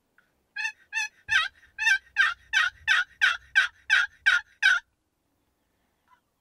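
Turkey call run as a series of about a dozen hen yelps, roughly three a second, each note breaking from a lower to a higher pitch, the first two softer. The string stops a little before five seconds in. It is calling to draw in a gobbler.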